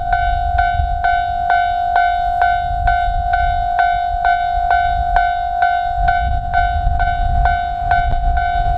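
Japanese railroad crossing warning bell ringing, an even, fast repeated clang of a little under three strikes a second, signalling an approaching train. A low rumble runs underneath, growing stronger in the last few seconds.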